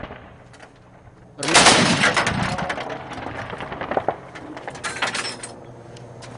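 A long burst of rapid automatic gunfire starts suddenly about a second and a half in. It is loudest at first and trails off after about four seconds.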